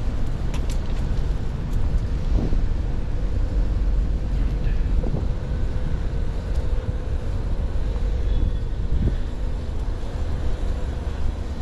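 Wind buffeting the microphone of a GoPro clipped to a cyclist's backpack strap, over a steady rumble of road traffic.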